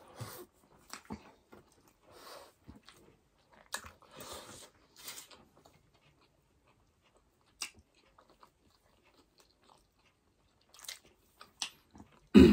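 Close-up eating sounds: wet chewing and lip smacks from two people eating soft burger steak and rice with their hands, in scattered short clicks with a quieter spell in the middle. A loud thump comes near the end.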